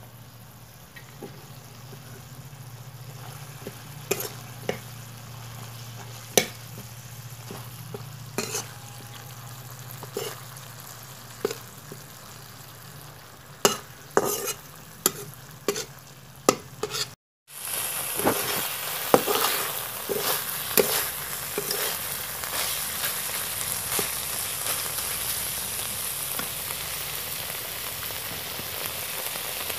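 Snail curry frying in a wok, with a metal spatula stirring it and knocking and scraping against the pan in sharp, irregular clacks. After a short break about two-thirds of the way through, the sizzling is louder and more continuous.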